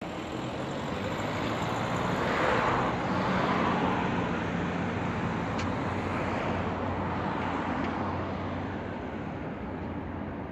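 Road traffic: car engines and tyres running steadily, with one car passing close and swelling about two to four seconds in before the noise slowly fades.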